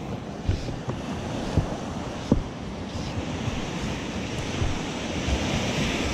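Atlantic surf washing up the beach, its hiss swelling near the end, with wind on the microphone and a few sharp low thumps in the first couple of seconds.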